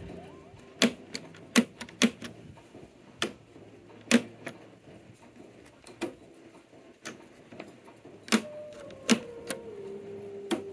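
RCA 813K radio's electric push-button tuning being worked: a series of sharp mechanical clicks, about ten, spaced unevenly. A faint whistle from the set slides down in pitch about eight seconds in.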